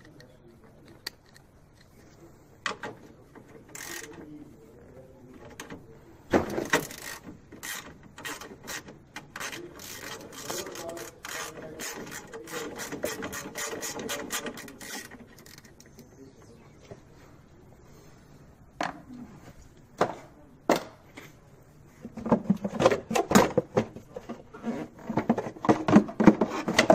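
Hand tools and parts being worked in a car's engine bay: scattered clicks, then a long run of quick, even clicking, then a louder cluster of clicks and knocks near the end.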